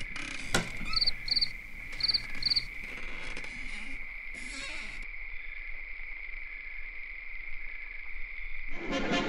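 Crickets chirring steadily, with four short, higher chirps in two pairs between about one and two and a half seconds in. A single sharp click sounds about half a second in, and the chirring cuts off just before the end.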